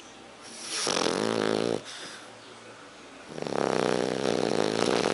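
French bulldog, a short-nosed breed, snoring in its sleep: two long snores, one starting about half a second in and a second starting past halfway, with quieter breathing between them.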